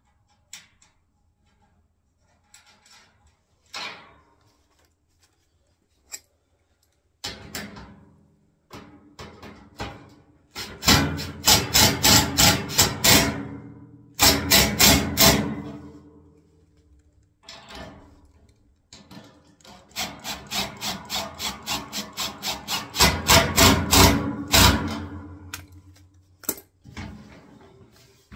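Hand tool tightening the bolts on a steel wheelbarrow's frame and pan: a few scattered knocks, then three spells of quick, even rasping strokes, about four a second, with the steel pan ringing along.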